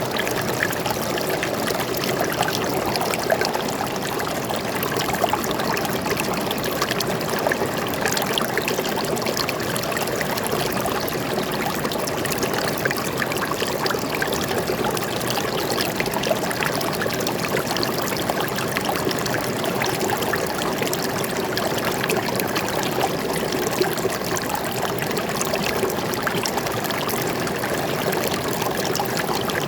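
Forest stream flowing steadily, water trickling and splashing over stones.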